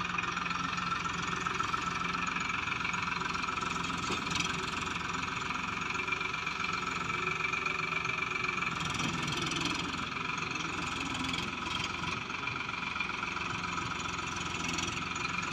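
Tractor diesel engine running steadily, with a brief rise and fall in engine pitch about nine seconds in.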